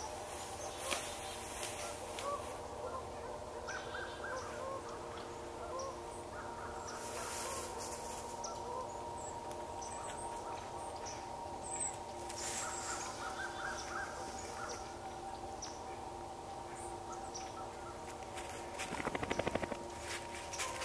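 Outdoor field ambience: short repeated animal chirps over a steady drone of several held tones, with a brief fast rattling call near the end.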